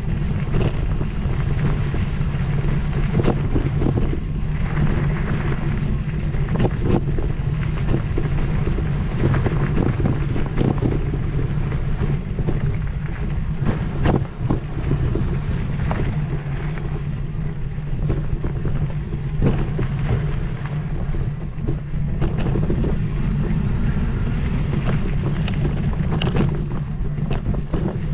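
An off-road vehicle's engine running steadily at low speed with a constant low hum, wind buffeting the microphone, and scattered short knocks and rattles.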